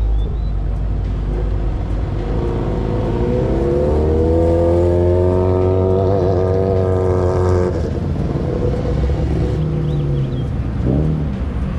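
A car engine accelerating: its pitch climbs for about four seconds, holds briefly, then cuts off suddenly, with a short rev near the end over a steady low rumble.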